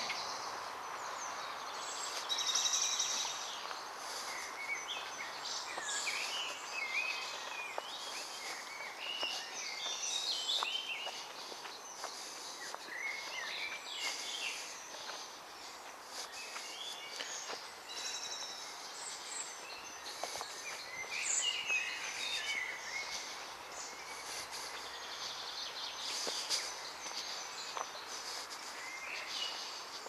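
Several songbirds singing at once, a continuous mix of overlapping chirps, trills and whistled phrases, over a steady background hiss.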